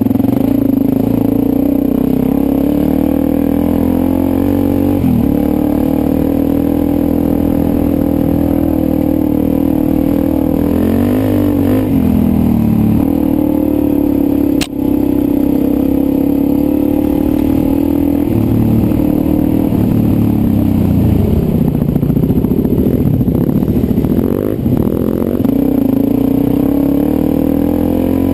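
Dirt bike engine running under load, its revs rising and falling again and again as the throttle is worked over rough trail. A single sharp click about halfway through.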